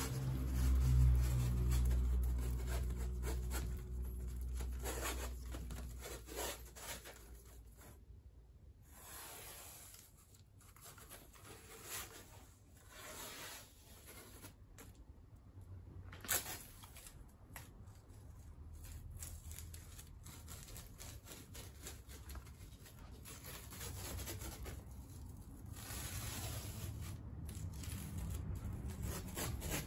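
Blue masking tape being peeled off the edges of a freshly caulked glass pane: a faint, uneven tearing rasp as the strip comes away from the glass. This is the step that leaves a clean sealant line.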